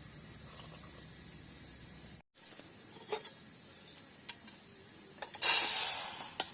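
Insects chirring steadily at a high pitch. It breaks off for an instant a little past two seconds, then goes on, with a few faint clicks and a short louder rustle near the end.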